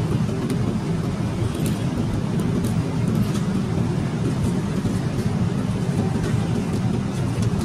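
Steady low drone of a jet airliner cabin in flight, with faint crinkles and clicks of plastic food wrappers being handled.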